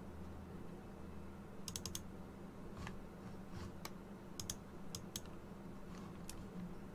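Faint clicks of a computer mouse and keyboard as software is worked. There is a quick run of several about two seconds in, then single clicks scattered through the rest, over a low steady hum.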